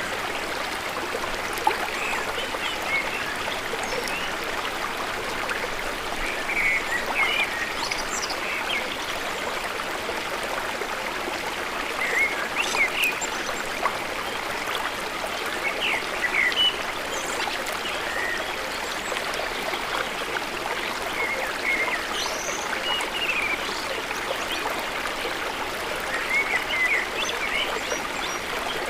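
Steady rush of a flowing forest stream, with short high chirping calls breaking in every few seconds, often in little clusters.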